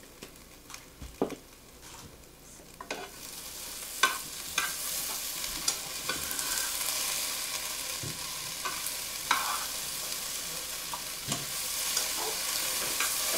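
Home fries (diced potatoes and onions) sizzling in a frying pan, with a spoon stirring and knocking against the pan. A few clicks from a pepper grinder come first, and the sizzle swells about three seconds in.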